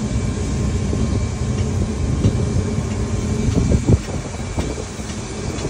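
Steady low rumble of background noise with a faint high whine, and a few soft knocks about three and a half to four seconds in.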